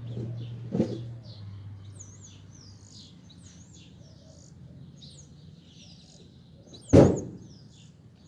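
Small birds chirping throughout, with a low hum fading away in the first couple of seconds. A light knock comes about a second in, and a single loud bang about seven seconds in.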